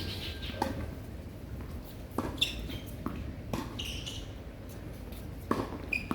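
Tennis rally: a ball being struck by rackets and bouncing on the court, a sharp knock every second or so, with short high squeaks of sneakers on the hard court between the hits.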